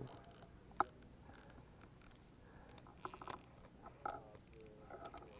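Faint clicks and scrapes of fishing tackle being handled while a fish is played on rod and reel: one sharp click about a second in and a quick run of ticks about three seconds in.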